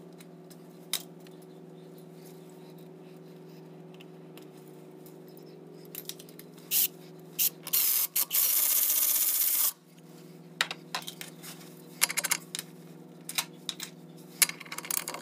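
A cordless ratchet gives a short spurt, then runs for about two seconds, backing out the primary clutch's centre bolt. Light metal clinks follow as the bolt and socket are handled, over a steady low hum.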